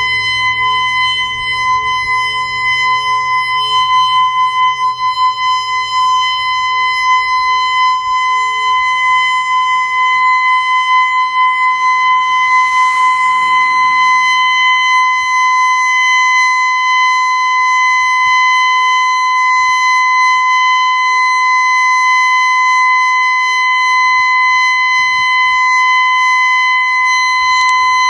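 Federal Signal outdoor tornado warning siren screaming at full pitch, holding one steady tone during its scheduled test.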